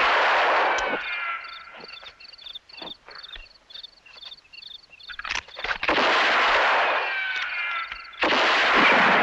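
Gunshot-and-ricochet sound collage: three sudden loud shots, each trailing off in falling whines, with smaller sharp cracks between them. Under it runs a steady high chirping, about three chirps a second.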